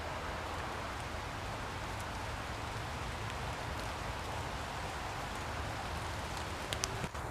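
Steady rain falling on the swamp's foliage, with a few sharp drop taps near the end.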